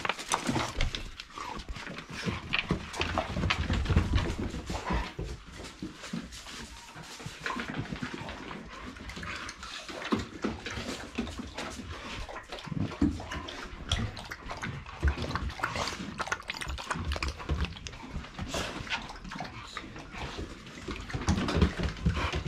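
Dogs eating raw chicken heads: many small, irregular crunches and clicks of chewing through bone, with dog noises mixed in.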